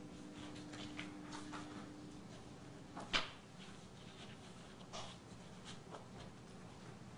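Faint courtroom room tone with scattered small knocks and rustles of people handling things at a table, one sharper knock about three seconds in.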